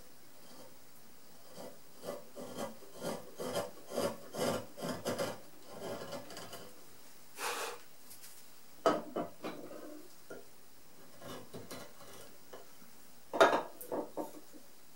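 Hand carving chisel paring very hard Japanese zelkova (keyaki) wood in a run of short scraping cuts, several a second, then a few more strokes. Near the end comes a sharp knock and a quick clatter as chisels are handled on the wooden bench.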